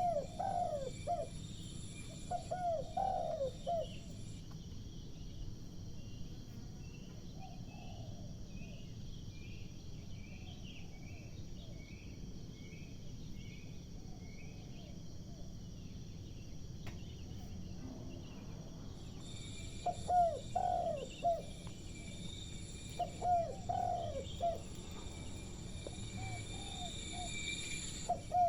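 Spotted dove cooing: repeated phrases of short, falling notes. They are loud near the start and again from about 20 seconds in, and fainter in between. A run of short, high, evenly spaced chirps sounds between about 4 and 9 seconds in.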